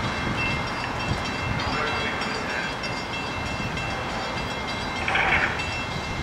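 A freight train's diesel locomotives approaching from a distance: a steady rumble and rush. A short, louder, higher-pitched sound comes about five seconds in.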